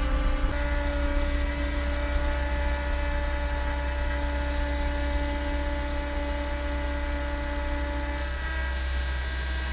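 Skid steer engine running steadily under load, its pitch stepping up slightly about half a second in.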